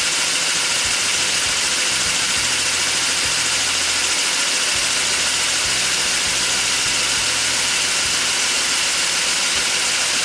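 Home-built LEGO pneumatic compressor, several electric motors driving pneumatic pumps, running steadily as it fills the air tanks. Its turbo mode has just switched off above 35 psi, so the motors are on 9 volts and run a bit slower.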